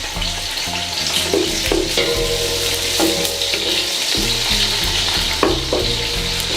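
Chopped onion sizzling as it fries in hot oil in a pan, with a steady hiss and a few knocks of the stirring utensil against the pan.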